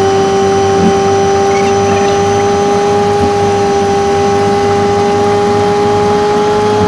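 Renault Laguna 1.8 8-valve four-cylinder engine and road noise heard inside the cabin, played back five times fast, so the engine's drone becomes a steady high-pitched hum that rises slightly near the end.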